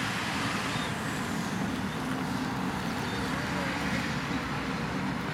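Steady background rumble of distant road traffic, even throughout.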